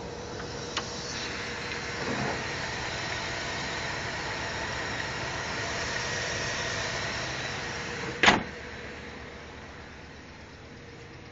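Old Ford pickup truck's engine running at idle, louder for several seconds while heard close over the engine bay, then quieter. A single loud, sharp bang about eight seconds in.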